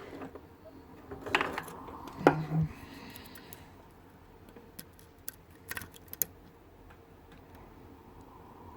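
Lock-picking tools working in a custom pin-tumbler challenge lock: small metallic clicks and scrapes. They cluster about a second and a half in, with a sharp click near two and a half seconds and a few lighter clicks around five to six seconds.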